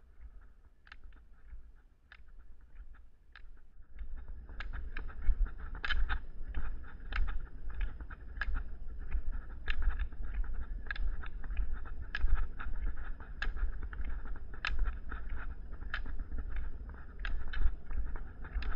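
Sharp clicks in a steady rhythm, a few at first and then about two a second, over a low steady rumble of rolling and wind noise that comes in about four seconds in, as the camera moves up a paved trail.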